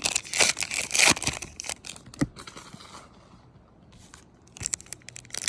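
Trading card pack wrapper being torn open and crinkled by hand. The rustling dies down for a couple of seconds midway, then starts again.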